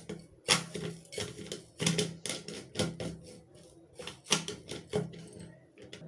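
Upturned drinking glass rim pressed and twisted into sugar sprinkles on a ceramic plate: irregular clinks and scrapes of glass on the plate, one to three a second, stopping near the end.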